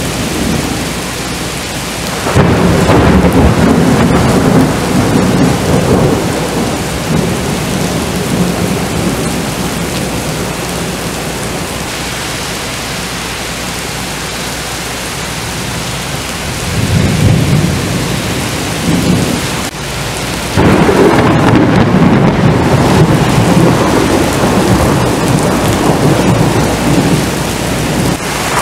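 Heavy rain pouring onto pavement, with loud rumbling thunder that swells about two seconds in and again from about twenty seconds in.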